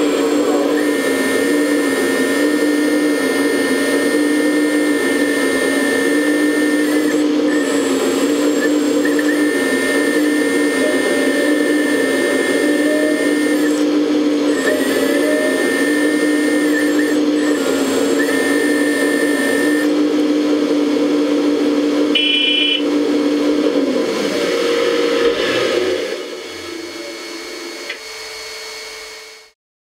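RC hydraulic excavator's pump running with a steady electric whine, and a higher whine that comes and goes several times as the hydraulic functions are worked. The sound drops in level near the end, then cuts off.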